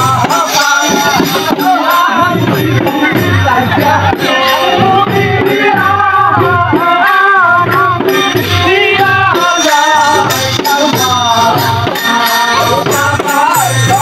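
Bengali Baidar folk song: a voice singing a wavering melody over a steady dhol drum beat, with rattling percussion.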